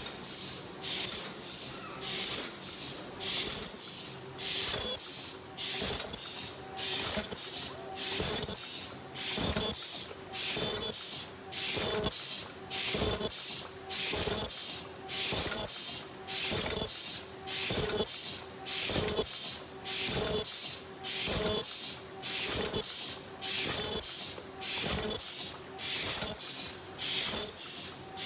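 Automatic paper bowl and bucket forming machine running at production speed. It repeats its cycle about once every 1.2 seconds, a loud burst of noise on each stroke over a steadier mechanical running sound, matching the rated 50–60 pieces a minute.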